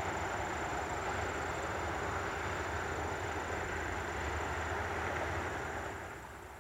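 Steady hum of distant highway traffic, fading out near the end.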